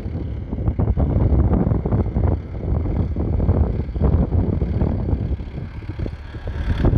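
Ford 5030's 4.2-litre four-cylinder diesel tractor engine running, with heavy wind buffeting the microphone. A sharp knock just before the end.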